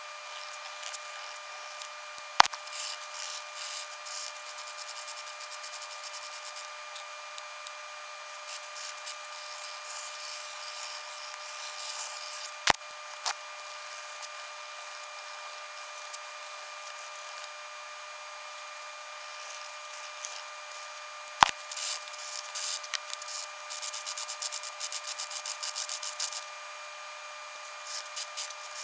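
Marker and pencil strokes scratching on grid paper in short clusters, with three sharp clicks spread through, over a steady faint whine.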